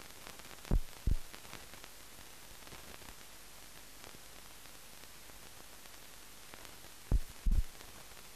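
Steady hiss of a silent film's blank soundtrack, with two pairs of short low thumps, one pair about a second in and another near the end.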